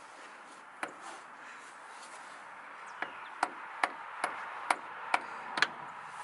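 Hammer tapping on the manual locking hub cap of a Ford F-150's front hub, sharp metallic knocks. There is a single knock about a second in, then a steady run of about seven taps, roughly two a second, from about three seconds in.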